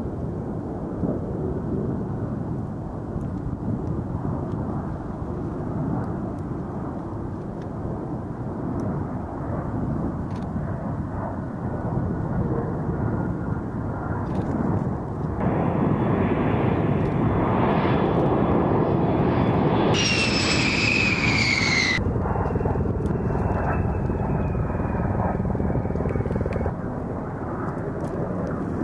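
A-10 Thunderbolt II jets' General Electric TF34 turbofan engines: a steady jet rumble, with a high whine that falls in pitch about two-thirds of the way in. The sound changes abruptly several times where takes are cut together.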